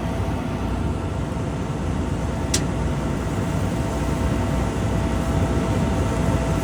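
A vehicle engine running steadily, with a low rumble and a faint steady hum, and a single short click about two and a half seconds in.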